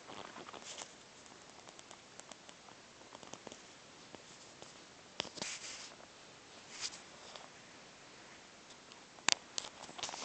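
A cat shifting on soft bedding: faint rustles and small clicks, louder rustles about five and seven seconds in, and a sharp click a little after nine seconds as it gets up.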